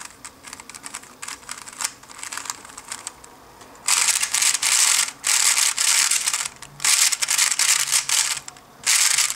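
3x3 speedcube turned by fingertips: a few scattered clicks of slow turns, then from about four seconds in, four loud runs of rapid clacking turns separated by short pauses, the algorithm executed at speed.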